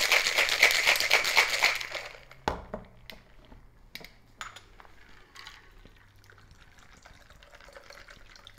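Ice rattling fast and evenly inside a stainless steel cocktail shaker being shaken for about two seconds, then a single knock as the shaker is set down on the counter, followed by a few small metal clicks as its cap is worked off.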